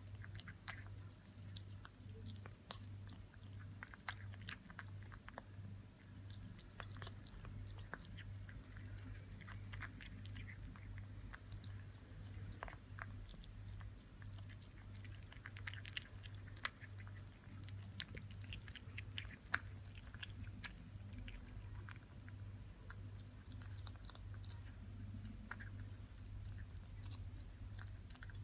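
A kitten chewing and biting raw minced meat from a bowl: faint, irregular wet clicks and smacks of its jaws, over a steady low hum.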